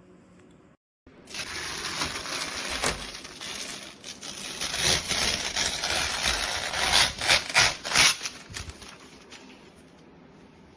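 Handling noise: rustling and crinkling, with a quick run of sharp knocks near the end before it fades.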